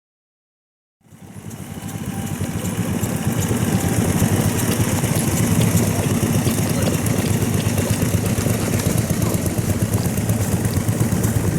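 Diesel engine of a 1969 Iseki KD900 walk-behind tractor running steadily with a fast, even firing beat, fading in about a second in.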